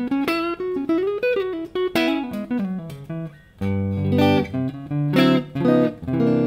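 Electric guitar played through a Mooer Two Stones preamp pedal on its clean channel, recorded direct into a sound card. It plays a single-note lick with a string bend, then fuller chords from about halfway through.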